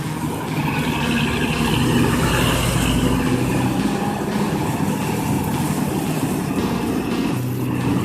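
Mercedes-Benz diesel engine of a large intercity bus running, a steady hum that shifts pitch a few times, with a deep rumble about a second in.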